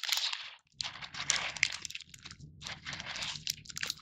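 Plastic wrappers of individually wrapped Baumroll snack cakes crinkling as they are handled, with small foam beads clicking and falling off them; many quick crackles with a brief pause near the start.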